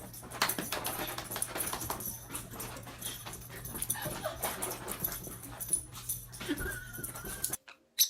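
A dog whimpering over scuffling and clicking noises, with a short, steady high whine near the end before the sound cuts off suddenly.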